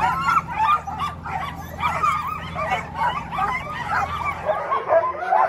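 A team of harnessed sled dogs yipping, barking and whining together in a dense, overlapping chorus, excited and eager to run.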